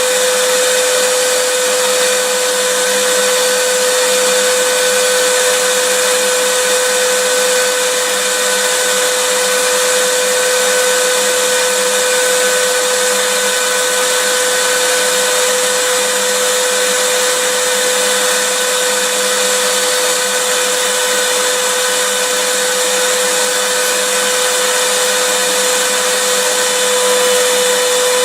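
Vacuum cleaner running steadily, a continuous rushing hiss with a steady motor hum.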